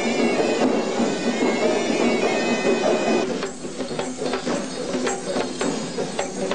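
Traditional music: a reedy wind instrument plays a droning melody, and about three seconds in drums take over with quick, repeated strokes.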